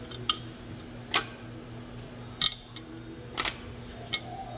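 Small, sharp metal clicks, about five spread irregularly, as valve keepers and spring retainers are lifted off a BMW M10 cylinder head by hand. A low, steady hum runs underneath.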